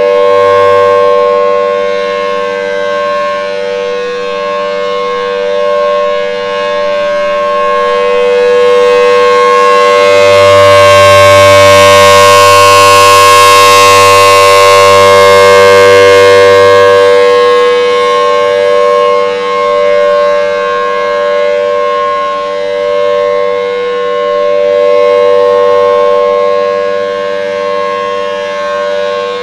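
Thunderbolt 1000T outdoor warning siren sounding the steady full-alert tone during a test: a loud, unbroken two-tone wail. It swells to its loudest about a third of the way in and eases off again as the rotating horn sweeps toward and then away from the listener.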